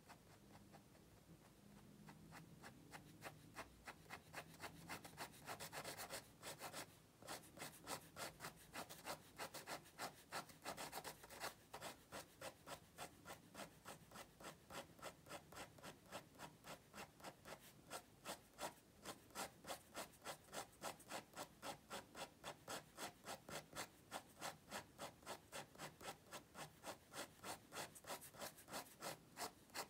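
Micron 08 fineliner pen hatching shading lines on textured drawing paper: faint, quick, even scratchy strokes, about three a second.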